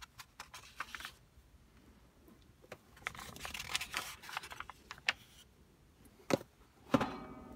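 Paper pages of an old desk diary being flicked and turned by hand, rustling in two spells, with a couple of sharp knocks near the end.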